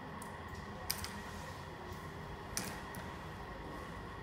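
Small wooden stamp-game tiles clicking as they are handled and dropped back into their wooden box: two sharp clicks about a second and a half apart, with a few fainter taps, over a quiet room hum.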